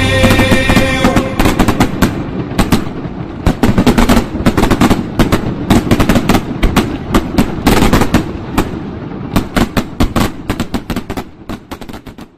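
Fireworks going off: rapid, irregular bangs and crackles, loud and close together, thinning out and fading near the end. The tail of a song's music cuts away about a second in.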